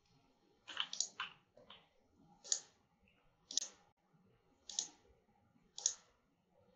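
Computer mouse buttons clicking while placing control points of a curve: a quick cluster of three clicks about a second in, then single clicks roughly once a second.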